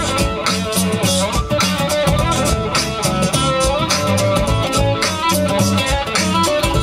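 Band music with electric guitar, bass and drum kit playing to a steady beat.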